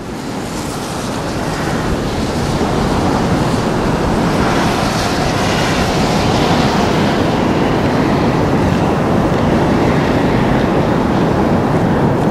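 Steady rushing roar of Niagara's American Falls pouring into the ice-choked gorge, fading in over the first two seconds and then holding level.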